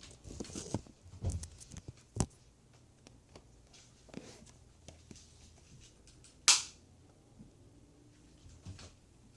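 BB gun fired once: a single sharp crack about six and a half seconds in, with a smaller click about two seconds in.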